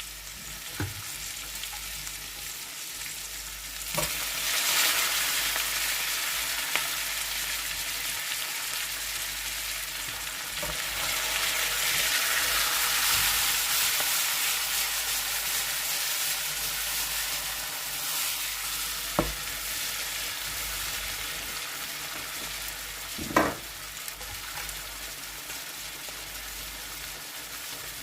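Asparagus frying in butter in a pan, a steady sizzle that swells about four seconds in and again midway. A few short knocks of a utensil against the pan as it is stirred, the loudest near the end.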